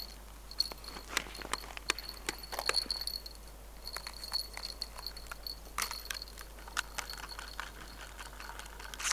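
Irregular crunching steps and clicks on snow and ice, with a faint high steady whistle that comes and goes several times.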